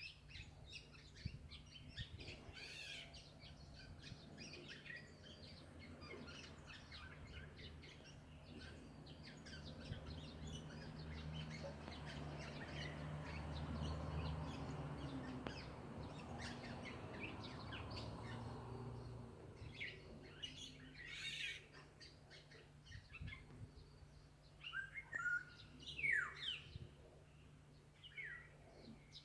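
Wild birds chirping and calling, many short high notes scattered throughout, with louder chirps and quick falling whistles near the end. A low rumble swells and fades in the middle.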